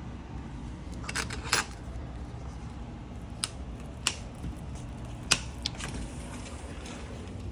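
Lever handles and metal latch of a glass double door clicking and clacking as it is unlatched and opened: a quick cluster of clicks about a second in, then several single sharp clicks, the loudest about five seconds in, over a steady low hum.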